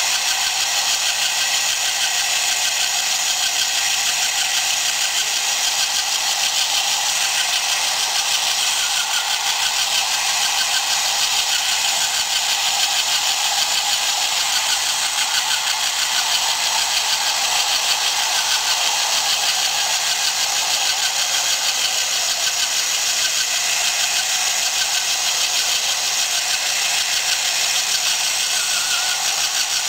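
Small battery-powered electric motor of a homemade chipboard tracked vehicle running steadily as it drives the rubber-band tracks, a continuous high-pitched whir.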